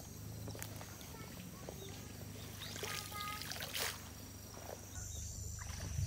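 Faint sloshing and trickling of pond water around a person wading in waders, with a brief louder swish just before the four-second mark.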